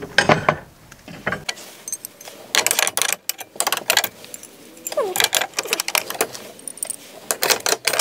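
A plastic bubble-padded mailer envelope rustling and crinkling as it is handled, in runs of short crackling bursts.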